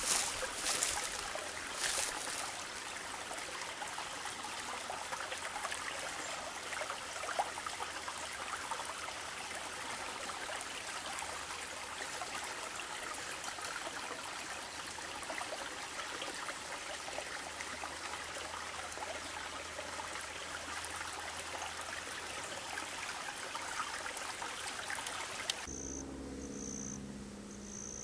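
Steady rushing sound of a stream. About 25 seconds in it cuts off suddenly, and insects chirp in a pulsing rhythm, about one chirp a second.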